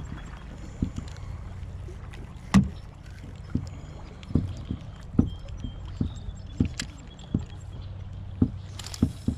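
Kayak being paddled, with irregular knocks against the hull roughly once a second, the loudest about two and a half seconds in, over a steady low rumble.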